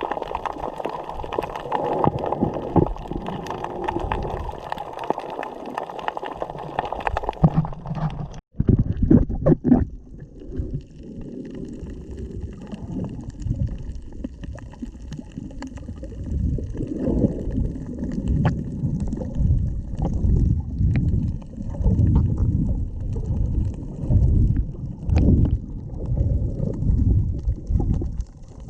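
Seawater gurgling and sloshing around a GoPro in its waterproof housing. About eight seconds in the sound cuts out for a moment, then turns to a muffled, low gurgling rumble that rises and falls in surges.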